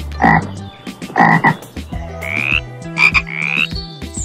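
Frogs croaking: two short croaks in the first second and a half, then from about two seconds in, a few higher calls that rise in pitch.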